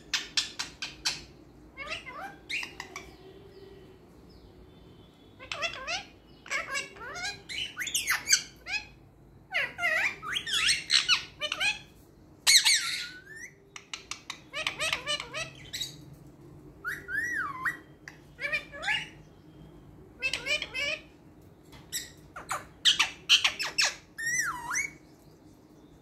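Rose-ringed (Indian ringneck) parakeet calling in repeated bursts of squawks, chirps and quick whistled glides, with short pauses between the bursts.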